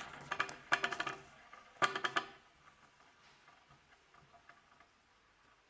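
Crackling and clicking from a red-hot metal ball sitting in a glass of burning liquor with ice. It comes in three quick bursts over the first two seconds or so, then dies down to faint, scattered ticks.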